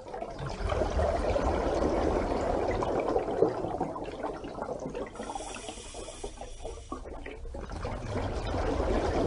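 Running water sound, a steady wash of noise that dips in the middle and swells again near the end.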